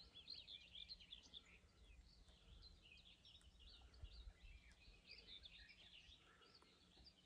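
Faint birdsong over a field: several small birds chirping and warbling continuously in a high register, over a faint low rumble.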